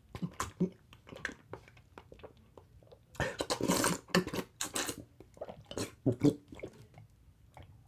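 Wet, irregular chewing and lip-smacking mouth noises, with a louder, longer burst about three seconds in.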